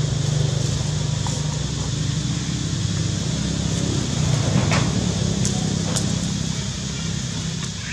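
A steady low hum, like a motor running, with a few short crackles about halfway through.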